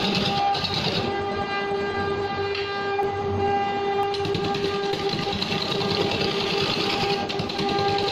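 Electric wood lathe turning a large log while a hand-held chisel cuts into it: a steady whine runs under a rough scraping hiss from the cut. The hiss eases about a second in and comes back about four seconds in.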